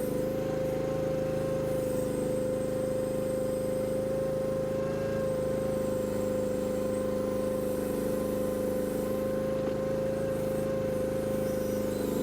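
Chinese mini excavator's engine running steadily, with one strong constant tone over its hum.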